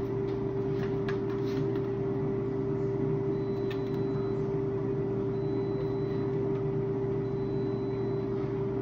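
Steady machine hum, like a motor or fan running, with one strong constant mid-pitched tone over a lower drone; a few faint light clicks sound over it.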